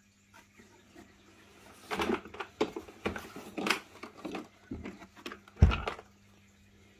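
Hard plastic Parkside Performance tool case being unlatched and opened: a run of plastic clicks and knocks, ending near the end with one heavy thump as the lid swings open.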